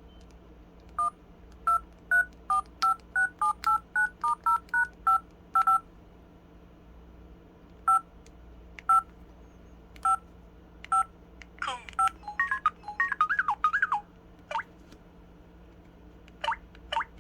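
Samsung SPH-W8300 'Magic Hole' mobile phone keypad sounding its two-tone dial beeps as keys are pressed, quickly at first and then more slowly. About two-thirds of the way through come a rapid flurry of short warbling, pitch-bending effect tones, and a few more sweeping beeps near the end.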